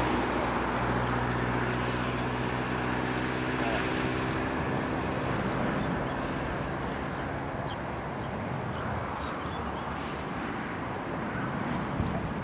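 Boeing 737-800's CFM56-7B turbofan engines at takeoff thrust as the jet climbs away, a steady rumble fading slowly in level; a low hum under it dies out about four and a half seconds in.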